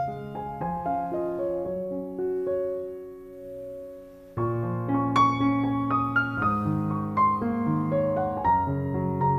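Background piano music, a gentle melody of struck notes. It thins to a soft, quieter passage about three seconds in, then comes back fuller just past four seconds.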